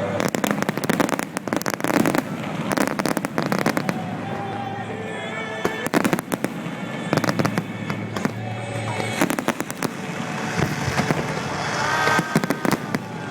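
Fireworks display: aerial shells bursting and crackling in a dense, continuous run of bangs.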